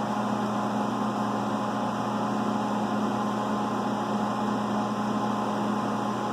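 Steady hum and fan noise of a powered-up CNC milling machine standing idle, with a low steady drone and an even hiss.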